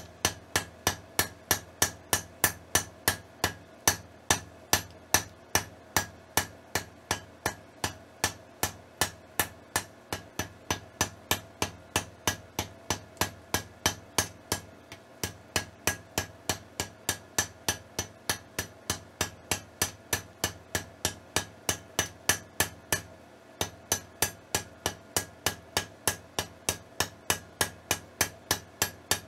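Hand hammer striking a glowing steel bar on an anvil in a steady run of blows, about three a second, each with a metallic ring, to set a forge weld. The hammering breaks off briefly twice and picks up again.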